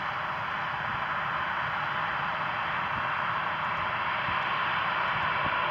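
Boeing 737-800's twin CFM56 turbofan engines running at taxi power as the jet turns close by: a steady jet hiss that grows slightly louder.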